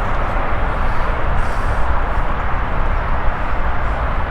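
Steady wind blowing across the microphone: a loud, even rush with a low rumble underneath.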